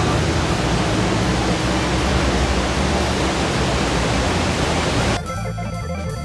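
Steady roar of a waterfall, with background music underneath. The water noise cuts off abruptly about five seconds in, leaving only the music.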